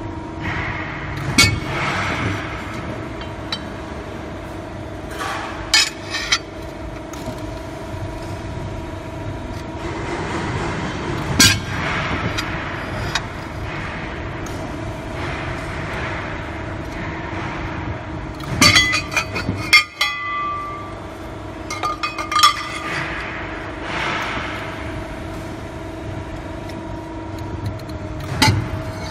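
125-ton, 4-metre CNC hydraulic press brake bending steel plate: the hydraulic power unit hums steadily. Sharp metallic clanks and clinks from the plate against the tooling come every few seconds, with a rattling cluster about two-thirds of the way through.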